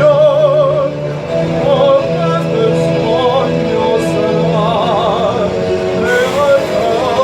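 A man singing an operatic aria with wide vibrato over a sustained low accompaniment.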